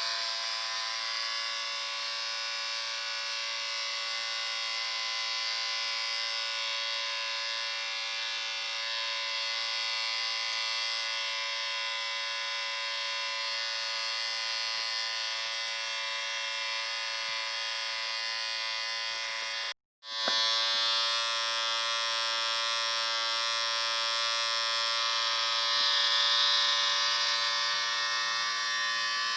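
Electric shaver motor running with a steady buzz. It cuts out for a split second about twenty seconds in, then starts buzzing again.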